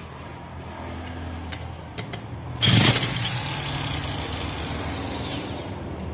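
Small grass-cutter engine being cold-started by spinning its starter hub with an electric drill. About three seconds in it fires with a loud burst and keeps running steadily.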